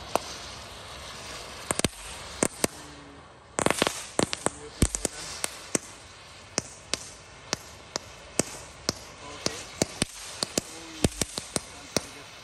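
Crackling fountain firework burning with a steady hiss and a scattering of sharp crackling pops, which come thicker from about a third of the way in. This is a 'pretek-pretek' fountain, one that throws out colored crackling balls.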